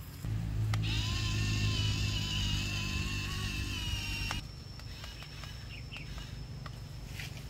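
Small electric motor of a home-made toy tractor and its rotary cultivator, whining steadily with a low hum as it runs through loose soil. It cuts off suddenly about four seconds in, leaving a few faint ticks.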